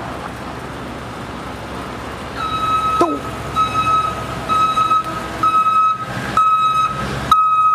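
Backup alarm of a small pickup truck beeping about once a second, starting a couple of seconds in, over a steady hum of vehicle noise.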